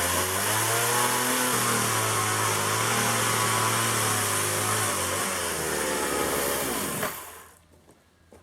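Petrol chainsaw running hard and cutting wood, its engine pitch dipping and rising with the load. About seven seconds in it is shut off and dies away quickly.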